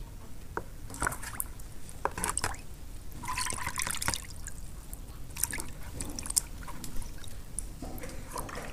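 Water sloshing and splashing in a plastic basin as gutted fish are rinsed by hand, with irregular small splashes and drips, busiest about three seconds in.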